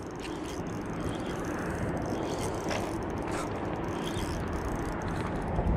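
A spinning reel being wound in during a lure retrieve, with a few faint ticks, over a steady outdoor background rush.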